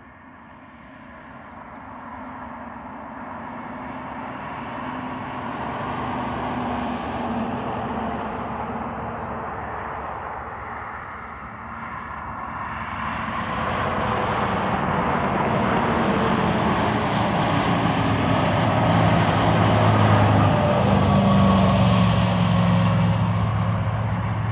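Road vehicles passing on a highway, their tyre and engine noise swelling and fading twice. The second pass is louder, with a steady low engine hum at its peak near the end.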